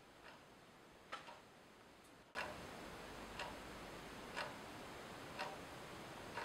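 A clock ticking faintly and steadily, about once a second.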